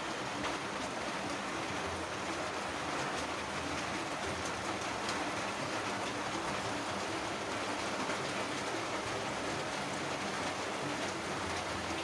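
Steady rain, a continuous even hiss with faint scattered drop ticks.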